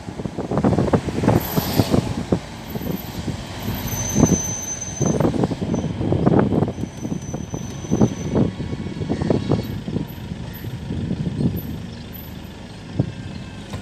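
Wind buffeting the microphone of a moving vehicle in irregular gusts, over the steady low rumble of the ride. A faint thin high whistle sounds twice near the middle.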